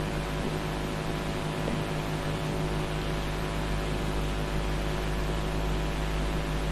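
Steady background hiss with an electrical mains hum: the soundtrack's own noise, with no distinct event.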